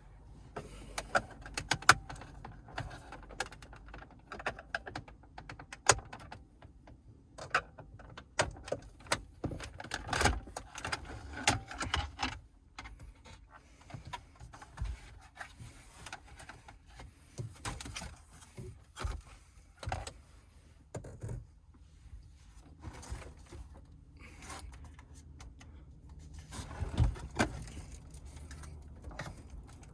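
Irregular plastic clicks, knocks and rattles as the Mercedes W203 C-Class's radio and dashboard trim are worked loose and pulled out by hand, with a low thud near the end.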